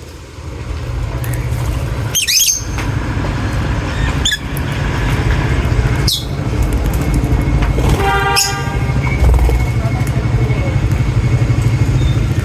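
Lovebirds giving a few short, high chirps and one harsh squawk about eight seconds in, over a loud, steady low rumble.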